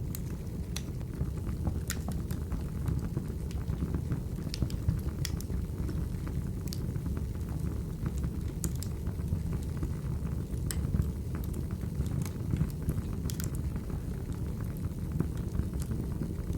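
Wood fire burning in a fireplace: a steady low rumble of flames with sharp crackles and pops from the logs at irregular intervals.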